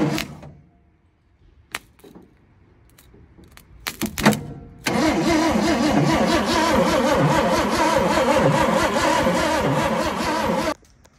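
A few sharp clicks, then, about five seconds in, the loud sound of a 1980 Ford 300 inline-six engine running off cables hooked to its starter, stopping abruptly near the end.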